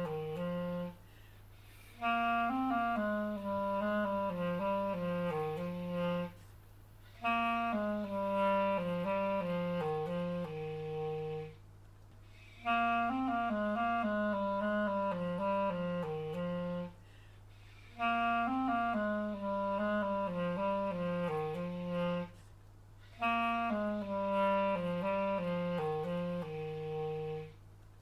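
Outro music: a slow solo woodwind melody played in phrases of about four seconds, each followed by a pause of about a second. A steady low hum continues underneath.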